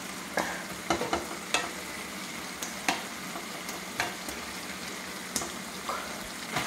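A slotted metal spatula scrapes and knocks against an iron kadai as a thick Chinese potato (koorkka) masala is stirred, the strokes coming irregularly about once a second, over a steady faint sizzle from the pan.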